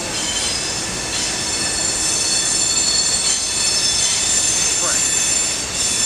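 Train rolling past with a steady rumble of wheels on rail and a high-pitched wheel squeal held on several steady tones.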